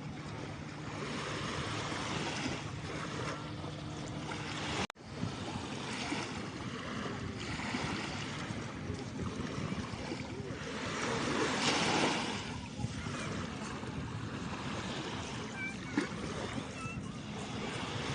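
Steady rushing of waves on a shore with wind on the microphone, swelling louder about twelve seconds in. The sound cuts out for an instant about five seconds in.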